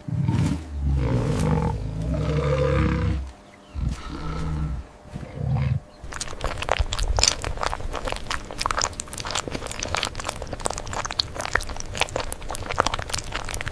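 A large animal's deep, rough roaring calls, several long ones in the first half, followed by a dense run of crunching clicks.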